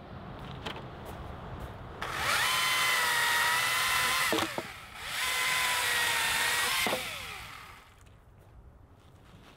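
Husqvarna T535i battery chainsaw run in regular (full-power) mode, triggered twice for about two seconds each, its electric motor and chain whining up to speed, holding steady, then winding down. Quieter rustling and clicks of handling branches come before and after.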